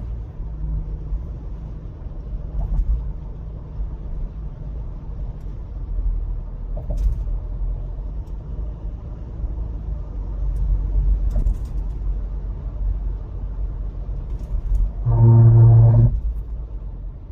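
Car road noise at highway speed, around 80 km/h: a steady low rumble of tyres and engine. Near the end, a pitched buzzing tone lasting about a second is the loudest sound.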